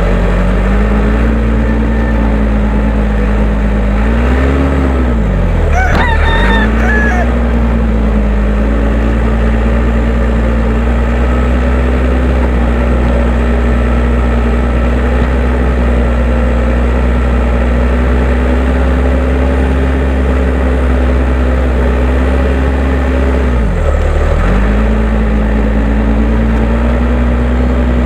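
Case 580M backhoe loader's four-cylinder diesel engine running steadily under load while scraping a firebreak in hard ground. Its pitch swoops up and drops about four seconds in, and sags again briefly near the end. A rooster crows once about six seconds in.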